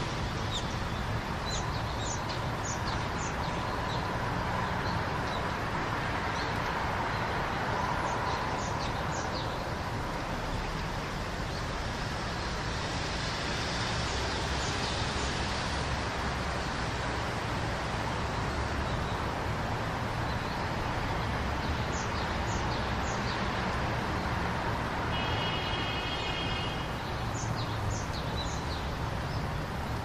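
Steady city traffic noise, with short, high bird chirps scattered through it. Late on, a steady pitched tone lasts a couple of seconds.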